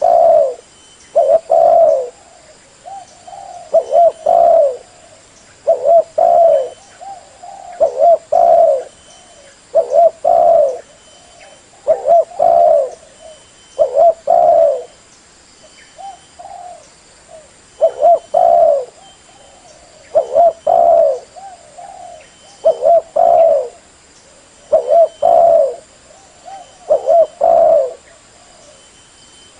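Spotted dove (decoy bird) cooing over and over, its low phrases repeating about every two seconds, the kind of call used to lure wild spotted doves to a trap.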